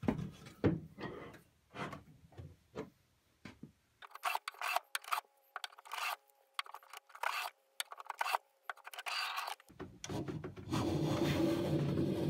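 Hand smoothing plane cutting shavings along the rough-sawn edge of a wooden shelf board: a series of short strokes, then one longer, steadier stroke near the end.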